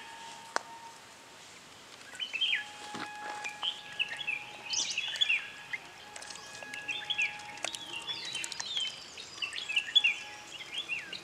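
Birds chirping and twittering, a dense run of quick high calls that starts about two seconds in and carries on, with some longer steady whistled notes and a few sharp clicks.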